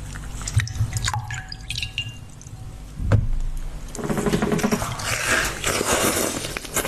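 Passion-fruit juice poured over a tall block of ice, with scattered clicks and drips on the ice and a sharp knock about three seconds in. Near the end comes a denser stretch of wet mouth sounds as the frozen block is eaten.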